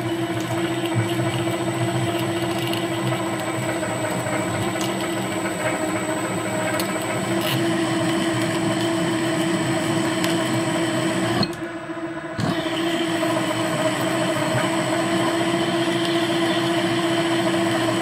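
A 1967 WMW BT10/2 drill press running with an M8 countersink cutting a metal plate: a steady motor and spindle hum with one constant tone and the rough noise of the cut. The sound drops away briefly about two-thirds of the way through, then carries on as before.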